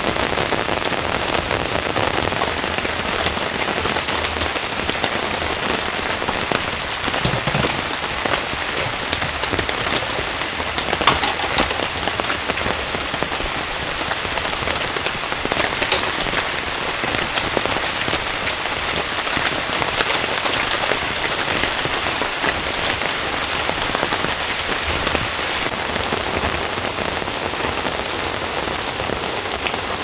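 Heavy rain falling steadily on the forest and on a tarp awning, with a few sharper taps standing out now and then.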